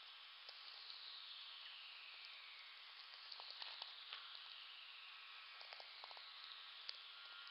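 VLF natural-radio receiver audio of a whistler echo train: slow falling whistles, each sliding down in pitch over about two seconds, arriving one after another every two to three seconds. Each whistle is the same lightning whistler echoing back and forth between the hemispheres along the Earth's magnetic field. Underneath runs a crackling hiss of sferics with scattered sharp clicks.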